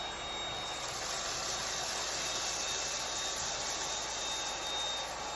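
Cordless stick vacuum cleaner running steadily, a high motor whine over a hissing rush of air; the air noise grows a little louder about half a second in.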